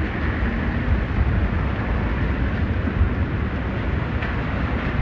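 Steady city street noise in a snowstorm: a low traffic rumble with wind buffeting the microphone.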